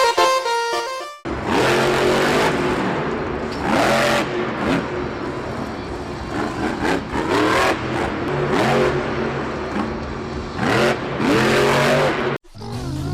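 Car engine revving again and again, with rising and falling sweeps over a steady rushing noise, after a second of music at the start. It cuts off abruptly near the end.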